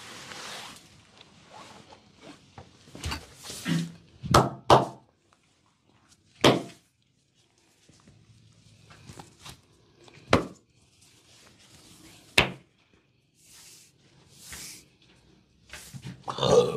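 Hands massaging a man's bare back: soft rubbing of palms over skin, broken by several sharp thuds of hands on the body, with a louder flurry of them near the end.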